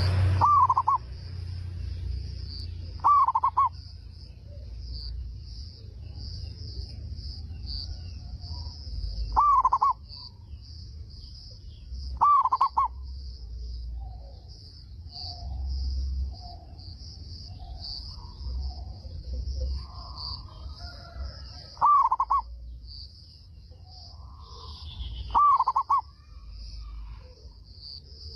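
Zebra dove (perkutut) cooing: short loud phrases repeated about seven times at irregular gaps, with softer calls between them. A steady faint high-pitched buzz runs underneath.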